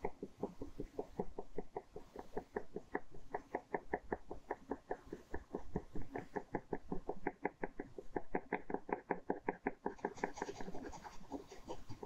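Ballpoint pen hatching on paper: quick, even back-and-forth strokes at about five a second, turning sharper and scratchier near the end.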